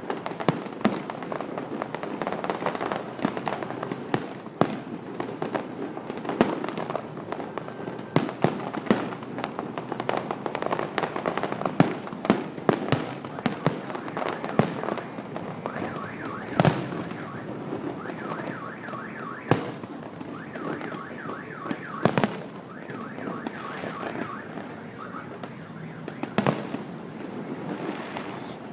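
Fireworks display: shells bursting as loud, irregularly spaced bangs over a continuous crackling rumble, with a repeating high warbling pattern through the middle stretch.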